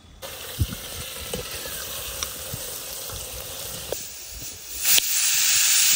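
Wood fire crackling, a steady hiss with scattered sharp pops, turning into a louder, even sizzling hiss near the end.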